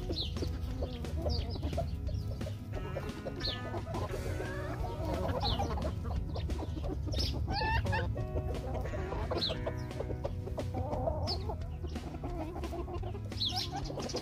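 A flock of hens clucking and murmuring as they forage, with short high chirps every second or two. Quiet background music runs underneath.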